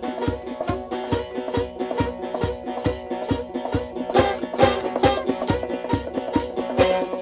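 Instrumental music with a steady beat of shaken rattle-like percussion, about three strokes a second, over sustained held notes.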